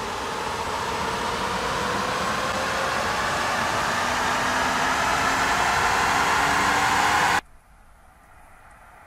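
A Mercedes electric test car's wheel and tyre spinning up on chassis dynamometer rollers. It makes a rushing whir that grows louder, with faint whining tones climbing in pitch as the speed builds. The sound cuts off suddenly near the end, leaving a faint low rumble.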